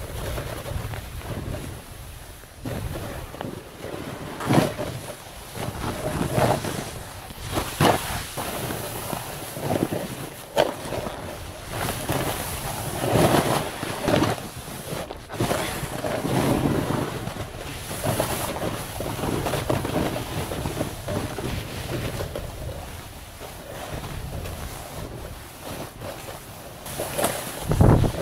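Wind buffeting the microphone in uneven surges, over the hiss and scrape of riding down a snowy slope.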